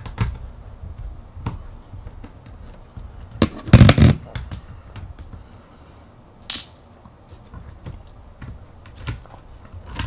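Small clicks and taps of hands and a tool working inside an opened Acer Aspire S3 ultrabook, taking out the hard drive's retaining screw and handling the drive, with a louder clatter about four seconds in.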